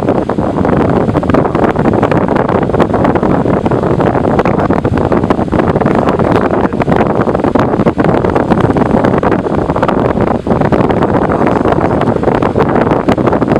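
Air King 9154 9-inch oscillating table fan running, its airflow blowing onto the microphone as a loud, steady rush of wind noise.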